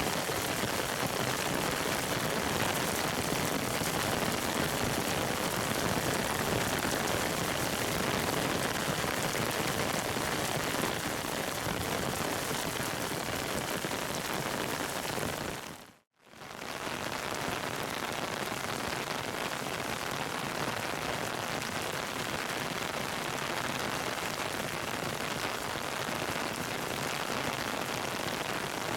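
Heavy rain falling steadily, a dense even hiss of drops on surfaces. It fades out briefly and comes back about halfway through.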